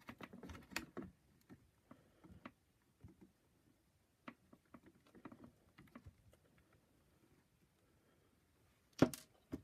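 Large metal groove-joint pliers handled against the plastic housing of a vacuum power nozzle while gripping a part to squeeze it open: scattered small clicks, taps and rattles, busiest in the first second, then one sharp loud click about nine seconds in.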